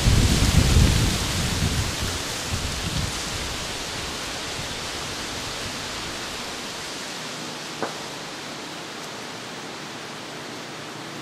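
Steady outdoor hiss with irregular low rumbling for the first two or three seconds, then easing. A single sharp click about eight seconds in.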